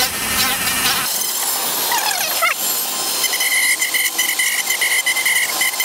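Dremel 4000 variable-speed rotary tool with a sanding drum running against the cut edge of a plastic bumper lip, smoothing it. It gives a high whine whose pitch slides about two seconds in, then holds steady from about three seconds in.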